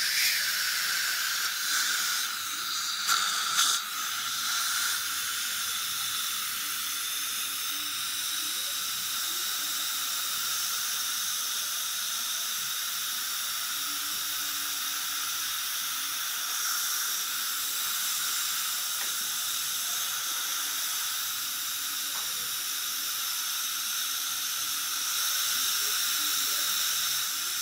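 Dental suction hissing steadily at the patient's mouth during a filling, with a few louder surges in the first few seconds.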